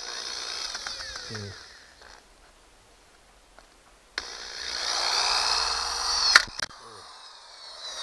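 Corded DeWalt electric drill with a spade bit boring through a plastic bottle lid. It runs, winds down and pauses for about two seconds, then starts again about four seconds in and runs louder. A sharp crack near the end, as the lid breaks, is followed by the motor coasting down.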